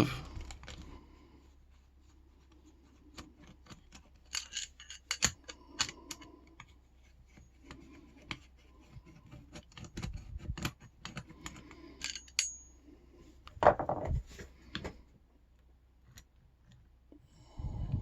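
A long screwdriver working deep inside a Yale K300 padlock body to take it apart: scattered small metallic clicks and scrapes, with a louder knock about two-thirds of the way through.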